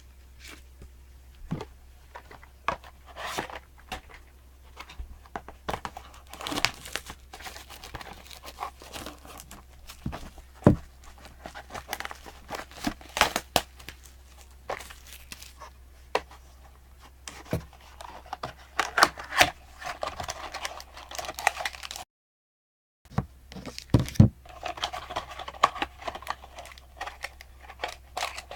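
Plastic trading-card packaging being torn open and crinkled, with scattered sharp clicks and taps as the box and packs are handled. The sound cuts out completely for about a second around two-thirds of the way through.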